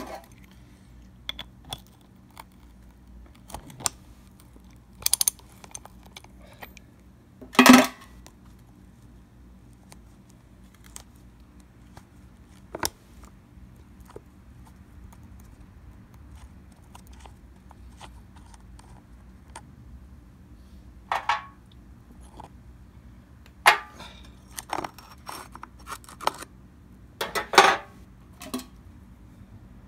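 Metal clinks and clanks from taking the blade off an Echo edger: a socket wrench on the blade bolt and the washer and blade being handled. The clinks come one at a time, with a handful of louder clanks spread through.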